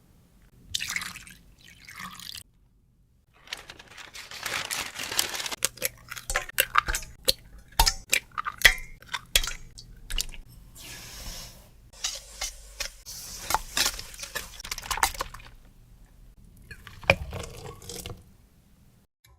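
Liquid ingredients being poured and dripping into bowls, with clinks and knocks of glass bowls and utensils, in several separate bouts with short pauses between.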